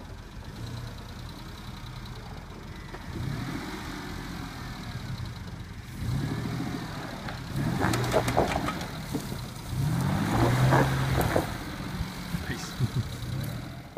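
Isuzu Rodeo SUV engine revving in low gear as it drives up a snowy dirt track and climbs a bank, its pitch rising and falling several times. It is loudest about two-thirds of the way through, with sharp crackles among the engine noise.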